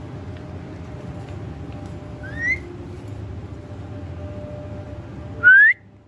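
Indian ringneck parakeet giving two short rising whistles, a softer one a little past two seconds and a loud one near the end, over a steady low background hum that drops away just after the second.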